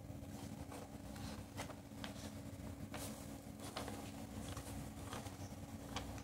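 Faint room background: a steady low hum with a rumble underneath, and about nine small clicks and rustles scattered through it.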